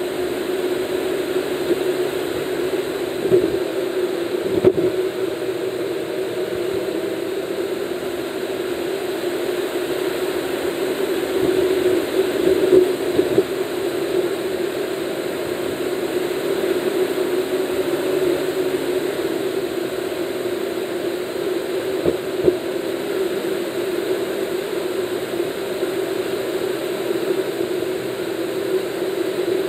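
Car cruising at highway speed, heard from inside the cabin: a steady drone of engine and tyre noise with a hum. A few brief knocks, near the start and again about two-thirds of the way through.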